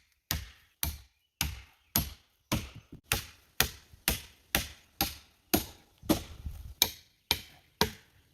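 Steady chopping into wood with a hand tool, about two sharp strikes a second, each dying away quickly.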